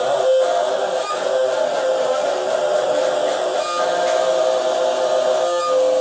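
Electric guitar playing sustained, ringing chords, with a few chord changes.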